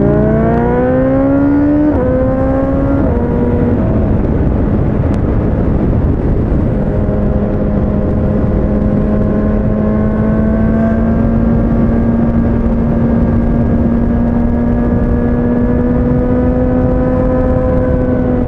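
BMW S1000XR inline-four engine pulling hard with its pitch climbing, then dropping at upshifts about two and three seconds in. It then runs at fairly steady revs that creep slowly upward. Heavy wind noise from riding at speed runs underneath.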